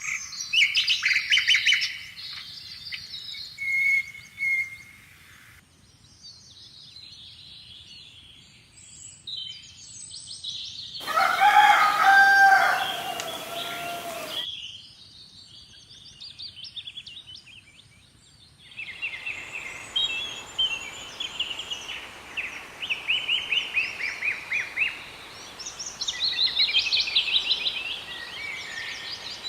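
Small birds chirping and singing in rapid, repeated high calls, with a rooster crowing once for about three seconds near the middle.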